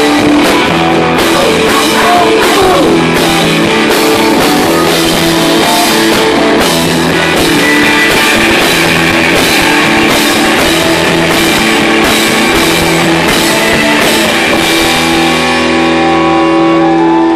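Live rock band playing an instrumental passage: electric guitars ringing out chords over a drum kit keeping a steady beat. Near the end the cymbals drop away.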